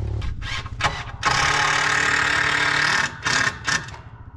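Cordless drill driving a decking screw into a wooden roof stringer: one sustained run of the motor of nearly two seconds, starting a little over a second in, followed by two short trigger bursts as the screw is seated.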